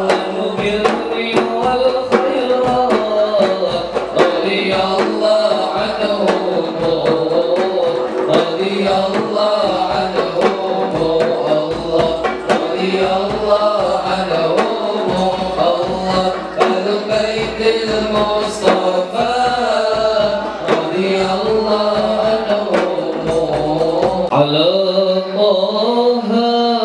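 Male voices chanting an Arabic selawat into microphones, backed by large hand-struck frame drums (hadrah/rebana) keeping a steady beat. Near the end the drumming drops out and the voices continue alone.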